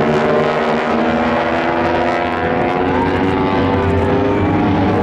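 Radial piston engine of a WWII Navy bomber running steadily, its drone holding an even pitch.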